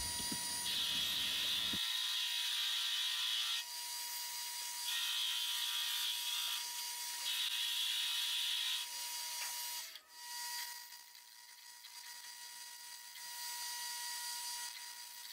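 Metal lathe turning a small metal part: the cutting tool makes a high hiss in three passes of a second or two each, over a steady whine. About ten seconds in it turns quieter as a drill bit in the tailstock bores into the part.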